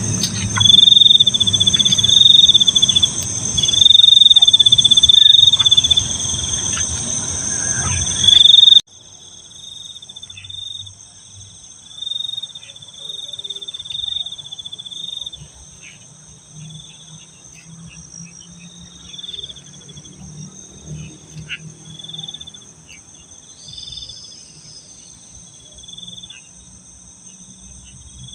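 Night insect chorus: crickets trilling in repeated bursts of about a second over a steady high buzz of other insects. It is loud, with a low rumble underneath, for the first nine seconds, then drops suddenly to a quieter chorus with a few faint clicks.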